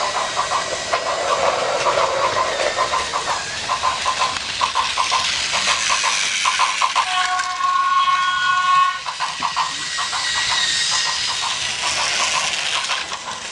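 Plarail battery-powered toy trains running on plastic track, with rapid, regular clicking. A hissing noise runs along with the clicking, and about seven seconds in a held electronic tone sounds for under two seconds.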